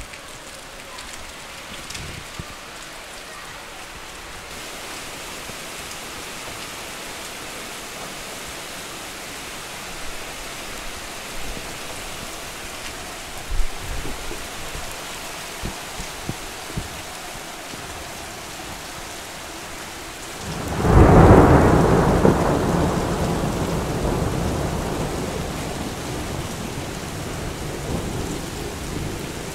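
Steady rain falling, with a few sharp taps partway through. About two-thirds of the way in, a loud thunderclap breaks suddenly and rumbles on, fading slowly.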